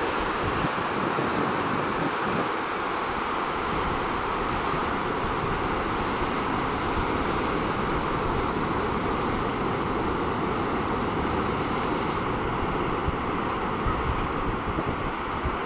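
Ocean surf breaking and washing over rocks below a cliff, a steady rushing hiss, with wind buffeting the microphone.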